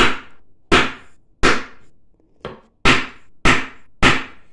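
Hammer striking a wooden chair frame at a joint: seven sharp blows about two-thirds of a second apart, one of them lighter, knocking the glued joint together.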